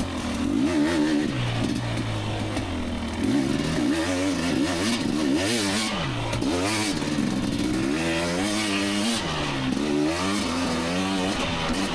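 KTM 250 XC two-stroke dirt bike engine revving up and down over and over with short throttle blips, the rider feathering the throttle for traction on slippery wet ground.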